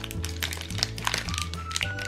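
Background music with a bass line and held melody notes, over the crinkling and crackling of a plastic Shopkins blind-bag wrapper being torn open by hand.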